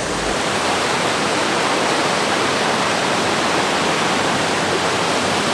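A fast, rain-swollen river rushing through rocky rapids: a steady, loud rush of white water.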